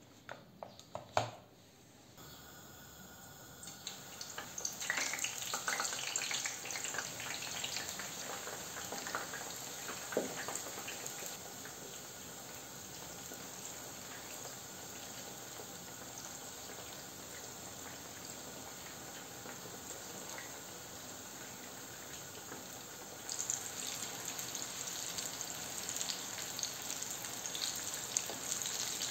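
A few knocks about a second in, then eggplant cubes deep-frying in plenty of hot oil: a steady sizzle with crackling and popping that gets louder near the end.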